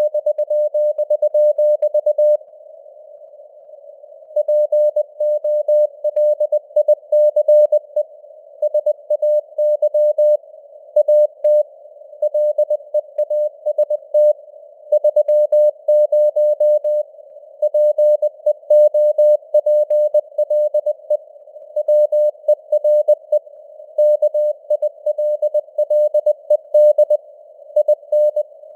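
Morse code (CW) news text sent at 20 words per minute: a steady mid-pitched tone keyed in dots and dashes over a soft simulated radio hiss. The keying pauses for nearly two seconds about two and a half seconds in, then carries on.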